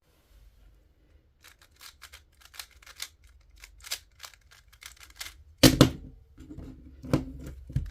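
Rubik's cube being turned: a run of quick plastic clicks, a few a second, then a few louder knocks in the last two seconds.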